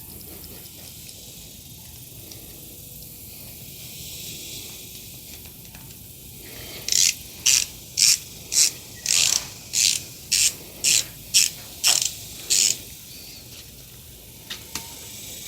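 The fine 72-tooth ratchet of an Anex QuickBall 72 ratcheting screwdriver clicking in about a dozen short bursts, roughly two a second, starting about halfway through. Each burst is one back-swing of the ratchet.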